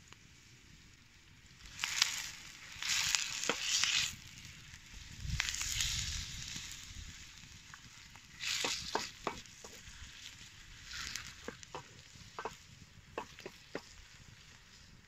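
Diced chicken and onion sizzling in a wide stainless steel pan as a wooden spatula stirs them. The sizzling comes in spells from about two seconds in, with sharp clicks and scrapes of the spatula against the pan in the second half.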